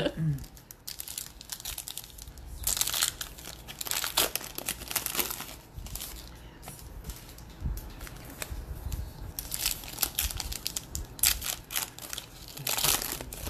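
Foil wrappers of 2020 Bowman baseball card packs crinkling as the packs are handled, then tearing as one is ripped open near the end. The sound comes in irregular bursts of rustling.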